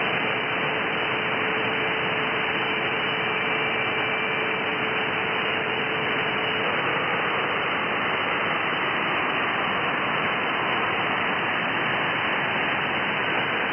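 Shortwave receiver hiss and static from an SDR in upper-sideband mode on an aeronautical Volmet frequency, with a steady low whistle that stops about halfway through.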